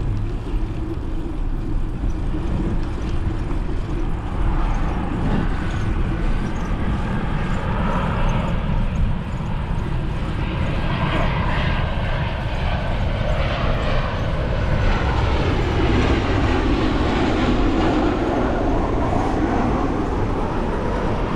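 Jet airliner flying low overhead: a steady engine noise with whining tones that glide slowly in pitch, growing louder in the second half.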